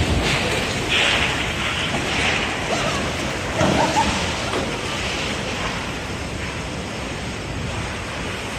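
Typhoon wind gusting with heavy rain, the gusts buffeting the microphone. There is a louder surge about three and a half seconds in, and the noise eases a little toward the end.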